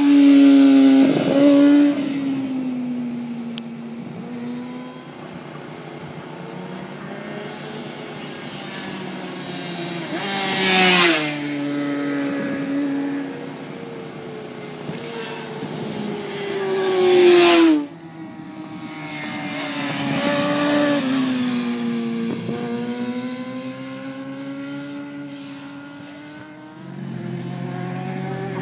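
Sport motorcycle ridden hard around a race track, its engine revving up and shifting through the gears. It passes close three times, each pass loud with a falling pitch as it goes by: at the start, about eleven seconds in and about seventeen seconds in. In between, the engine is heard further off, rising and falling as the rider accelerates and brakes.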